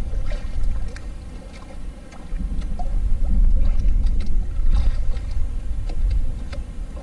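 Water sloshing and lapping against the hull of a small fishing boat, over a heavy low rumble that eases about two seconds in and swells again. Scattered light clicks and knocks come from the fishing line and gear being handled.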